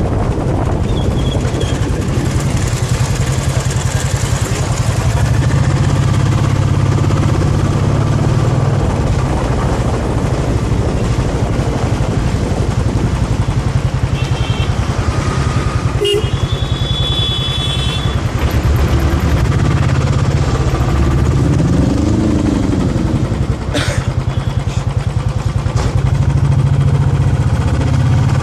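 Royal Enfield Classic 350's single-cylinder engine running steadily while the motorcycle is ridden along a road, with road and wind noise over it; a sharp click sounds about halfway through.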